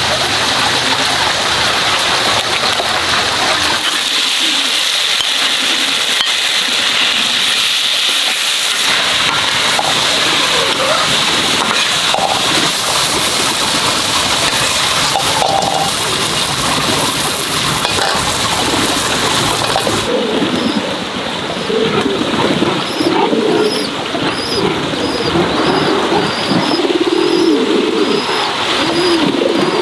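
A steady hiss for about the first two-thirds, then domestic pigeons cooing over and over, with a high chirp repeating about once a second above them.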